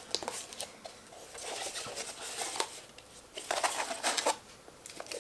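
Cardboard and plastic toy packaging being handled: light rustling with scattered small clicks and taps, in a few short spells.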